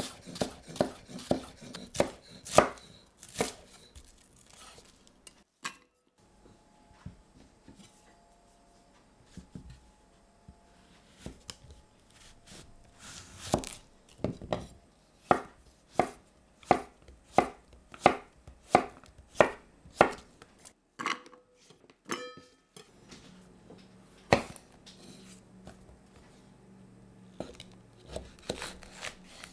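Chef's knife chopping vegetables on a wooden cutting board, each stroke a sharp knock of blade on board. A quick run of slices through a shallot comes first. A little later there is a steady series of chops through a courgette, about two a second.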